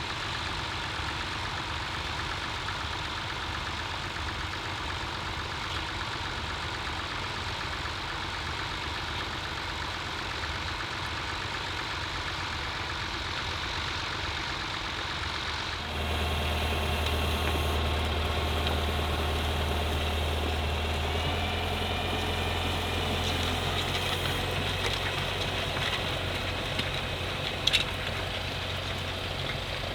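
Tractor engine running steadily at low revs. About halfway through the sound turns louder, with a strong deep hum, and a short sharp click comes near the end.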